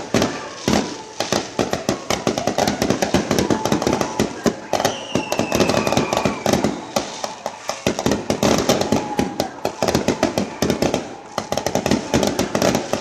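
Fireworks going off in a dense, continuous barrage of rapid crackles and bangs. A whistling tone slides slowly down in pitch about five seconds in.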